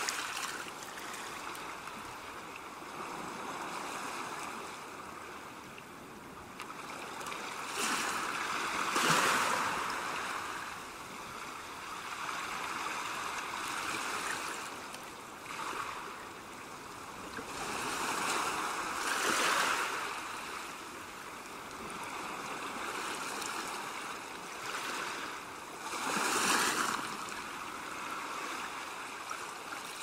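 Sea waves washing onto a shore: a steady rush of surf that swells into louder surges every five to seven seconds and then falls back.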